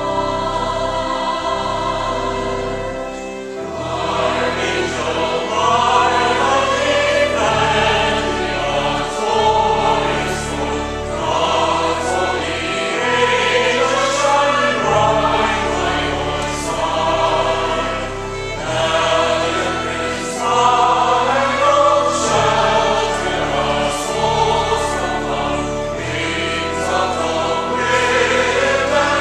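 Church choir singing a hymn, accompanied by pipe organ holding long low notes beneath the voices.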